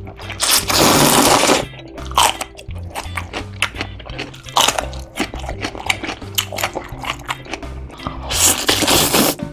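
Thin wheat noodles slurped loudly twice, about half a second in and again near the end, each slurp lasting about a second. In between come crisp crunching bites and chewing. Background music with a steady bass line runs under it all.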